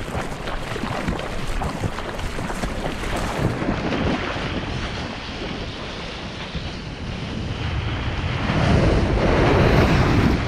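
Seawater splashing and rushing past a board-mounted camera as a surfboard moves through the water and rides a wave, with wind buffeting the microphone. It starts as choppy splashing and grows into a louder, deeper rush over the last two seconds.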